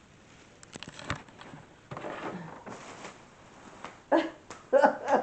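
Cardboard and packing material rustling and clicking as a large box is unpacked, then a few short vocal sounds near the end.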